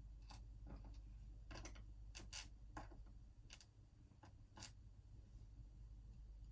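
Faint, irregular small metallic clicks and taps, about ten of them, with the loudest a little over two seconds in and again near the middle. They come from handling the small parts of an Assa Twin 6000 lock cylinder as it is being taken apart.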